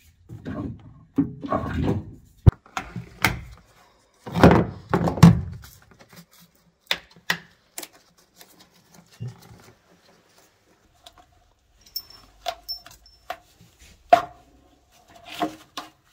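Irregular knocks, thunks and clatter of parts and wiring being handled and pulled out of an old car, heaviest in the first few seconds and thinning to scattered light ticks later.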